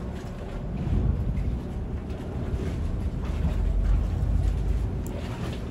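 Engines of the catamaran ferry MV Annabelle Rankin running with a steady low hum at the wharf, louder about a second in and again near four seconds. Wind noise on the microphone runs underneath.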